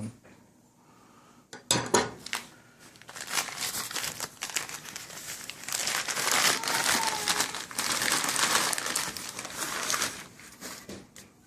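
Packaging being crumpled and rustled by hand: a few sharp rustles about two seconds in, then a long stretch of continuous crinkling that dies away near the end.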